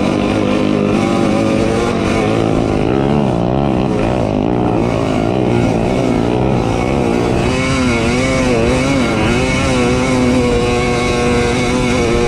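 Dirt bike engine running under load as it climbs a soft-sand dune. Its pitch rises and falls with the throttle, then holds steadier about two-thirds of the way in.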